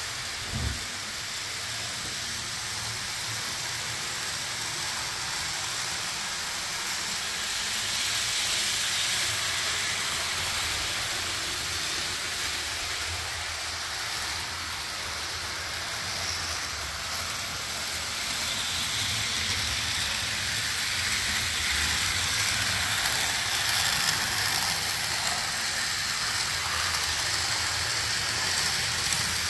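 HO-scale model train running on shelf track: a steady hissing rattle of wheels and motor that gets a little louder in the second half.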